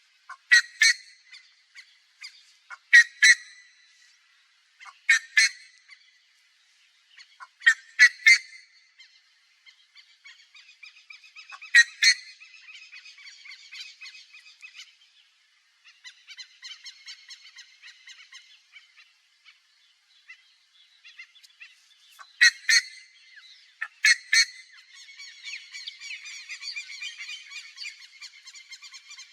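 Buff-necked ibis calling: seven loud, short calls spread a few seconds apart, a few of them doubled. Between the loud calls there are stretches of fainter, rapid chattering calls, about ten seconds in and again near the end.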